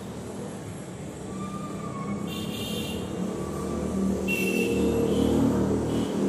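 A road vehicle passing by, its engine noise growing louder towards a peak about five seconds in.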